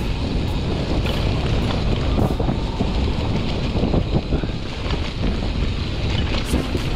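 Wind rumbling on a GoPro action camera's microphone, over the steady rattle and tyre noise of a mountain bike riding a rough trail.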